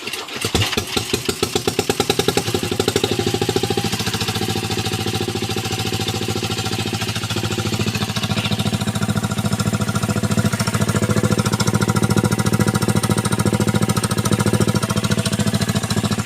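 Dongfeng single-cylinder diesel engine with an Akrapovic racing exhaust firing up about half a second in. Its separate beats quicken over the first couple of seconds, then it runs steadily with a fast, loud chatter from the exhaust, which the owner says is leaking.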